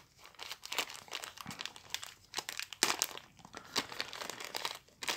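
Thin translucent plastic packaging bag crinkling as it is handled and opened, a run of irregular crackles with the loudest flurry about three seconds in.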